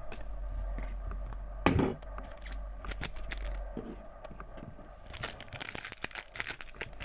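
Trading cards sliding and scuffing against each other as they are flicked through, with a sharp thump just under two seconds in. From about five seconds in comes a dense crackling as a foil trading-card pack wrapper is crinkled and torn open.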